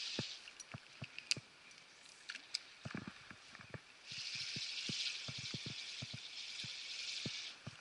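Scattered raindrops ticking irregularly on the action camera's housing, over a high steady hiss that cuts out about half a second in, returns about four seconds in and stops again just before the end.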